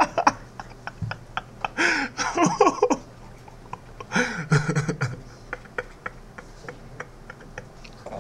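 Two short bursts of a man's voice without clear words, about two seconds in and again about four seconds in, with faint scattered clicks between them.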